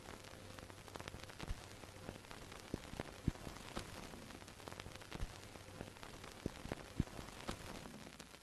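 Faint crackling static: a steady hiss with a low hum and irregular sharp clicks and pops.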